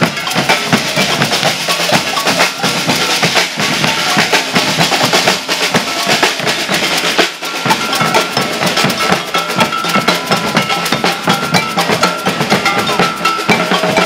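Maracatu percussion ensemble playing a fast, dense groove: deep alfaia bass drums, rattling snare-type drums and a clanking cowbell. A steady high tone is held over the drumming from about halfway.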